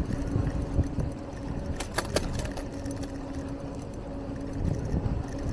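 Street traffic noise heard from a moving bicycle: a constant low rumble with a steady engine hum, and light metallic rattling with a few sharp clicks.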